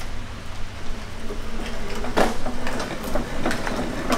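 Loaded hydraulic table cart's casters rolling across the shop floor under an engine, transmission and subframe, a steady rumble with loose rattling and a sharp clank about two seconds in.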